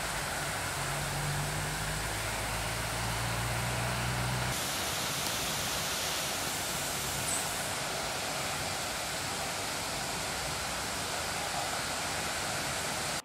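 Heavy rain pouring down, a steady even hiss of rainfall. A low hum runs under it for the first four or so seconds, then stops as the hiss turns brighter.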